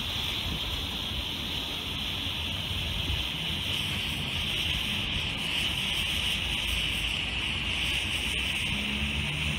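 Category 1 Red Flame ground firework burning with a steady hiss.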